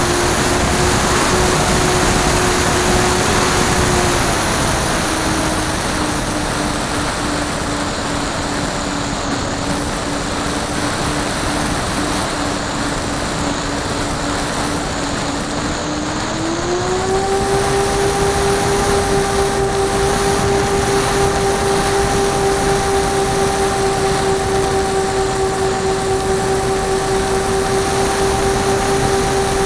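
Radio-controlled model airplane's motor and propeller droning steadily, heard from a camera mounted on the plane. The pitch drops a little about four seconds in as the motor slows, then rises again about sixteen seconds in as power comes back on.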